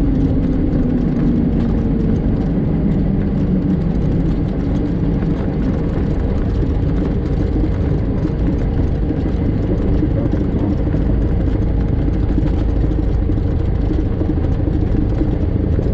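Light single-engine propeller airplane's engine idling during the landing rollout and taxi, a steady drone whose pitch sinks over the first few seconds as it settles to idle.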